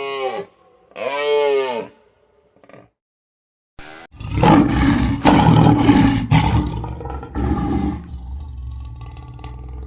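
A short, arching mooing call near the start, then after a pause a lion roars loudly and roughly for about four seconds before fading.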